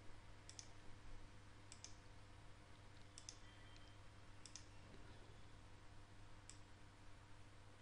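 A handful of faint computer mouse clicks, some in quick pairs, spread over near-silent room tone with a faint steady hum.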